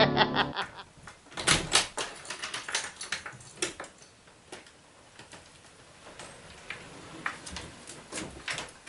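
Irregular knocks and clicks of someone moving about and handling things in a small room, loudest about one and a half to two seconds in. The tail of the intro music cuts off about half a second in.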